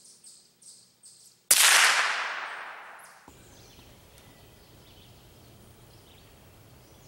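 A single gunshot about a second and a half in, its report dying away over nearly two seconds in the woods. Before it, a run of faint high chirps.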